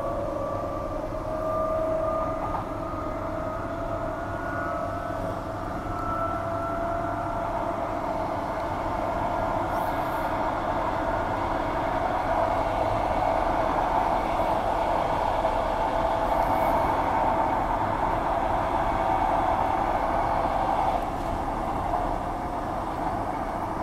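Transperth A-series electric multiple unit heard from inside the carriage: the traction motors give a rising whine as the train picks up speed, over the steady running noise of wheels on the rails. The running noise eases a few seconds before the end.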